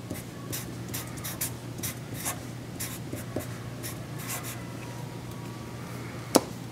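Sharpie marker writing on cardstock: a run of short pen strokes one after another as letters are drawn, stopping about four and a half seconds in. A single sharp tap comes near the end.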